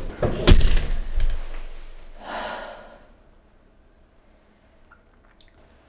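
A door pushed shut with a loud thud about half a second in, then a woman's long, heavy exhaled sigh.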